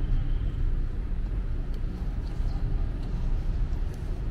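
Steady low, fluttering outdoor rumble with a few faint ticks.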